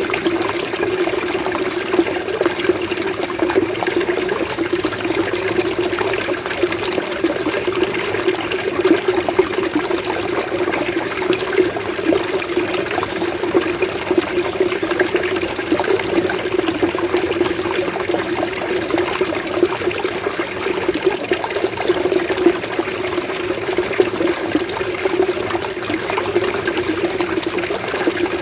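Flowing water gurgling steadily, a continuous burble of small bubbling splashes.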